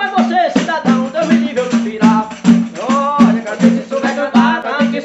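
Two pandeiros, Brazilian frame drums with jingles, played together in a steady, fast embolada rhythm, with a man singing an improvised verse over the beat.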